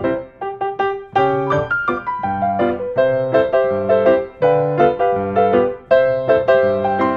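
Background piano music: a steady run of struck notes that ring and fade.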